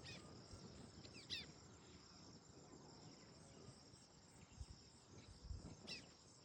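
Faint steady chirring of crickets, with a small bird giving short high chirps that slide downward, once about a second in and again near the end.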